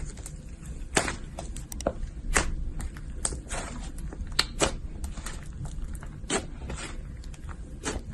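Slime being squeezed and pressed by hand, giving irregular sticky pops and crackles, several a second.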